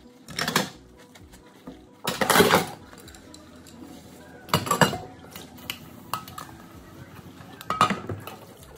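Dishes being washed in a stainless-steel sink: a metal spoon, a ceramic plate and stainless-steel bowls clatter and clink against each other and the sink. Four louder bursts of clatter come a couple of seconds apart, with lighter clinks between.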